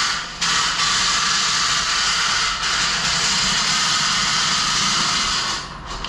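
A drain auger's cable spinning inside a steel frame rail, scouring out rust and loose crud. It makes a loud, steady rushing noise that dips briefly twice and eases off near the end.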